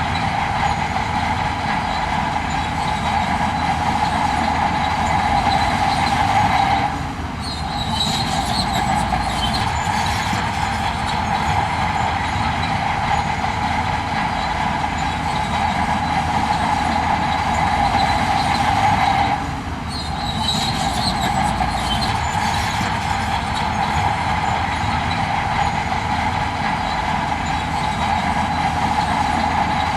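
Heavy earthmoving machinery working: a steady engine drone under a loud, continuous metallic squeal, like crawler tracks grinding. The squeal drops out briefly twice.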